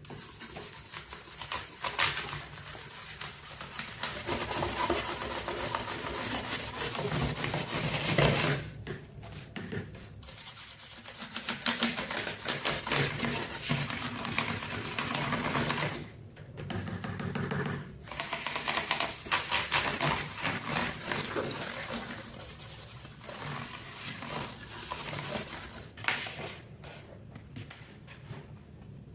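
Rapid clicking and rubbing of plastic as the keycaps of a mechanical keyboard are worked on. It comes in stretches of a few seconds with brief pauses between them.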